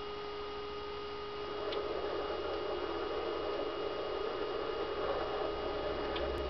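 Steady electrical hum with a constant hiss, a little louder from about a second and a half in, with two faint ticks.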